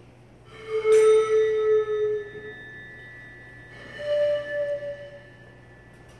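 Improvised music: a small instrument held at the mouth sounds a pitched tone, held for about two seconds and then again, a little higher, for about a second near the middle. A sharp metallic strike about a second in leaves a high ringing that hangs on to the end.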